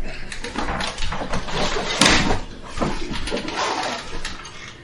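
Person rolling over onto their side on a padded chiropractic treatment table: rustling and shifting of body and clothing against the table, with one louder thump about two seconds in.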